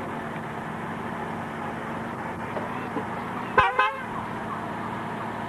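A car horn gives a short double toot about three and a half seconds in, over steady outdoor background noise.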